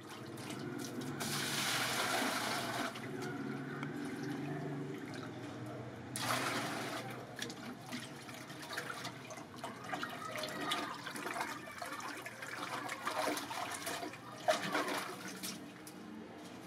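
Water sloshing and pouring as a plastic jug is dipped into a barrel and emptied into a bucket, with splashing of the water in the bucket. Rushing pours come near the start and again about six seconds in, then smaller splashes and one sharp knock late on.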